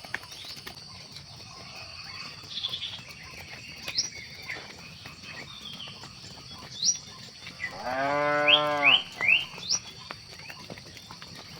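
A cow moos once, a single drawn-out call lasting just over a second about eight seconds in. Short rising chirps sound now and then over a steady high-pitched hum.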